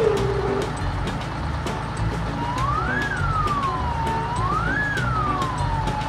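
A wailing siren sound effect, rising and falling in pitch about every two seconds, starts about two seconds in, over background music with a steady beat. Right at the start a held tone drops away in a quick downward slide.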